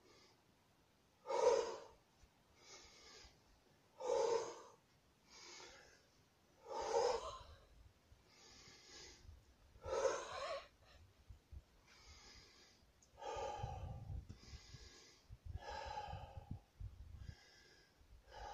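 A man's deep, forceful breathing in a recovery breathing exercise after strength training. Four loud breaths come about three seconds apart, with quieter ones between. After about twelve seconds the breaths come quicker and weaker.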